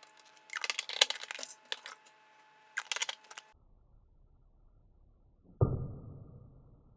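Okra water and whole okra pods poured from a glass jar into a pitcher, the pods clinking and knocking against the glass in two bursts with a glassy ring. About five and a half seconds in, a single low ringing note starts suddenly and fades.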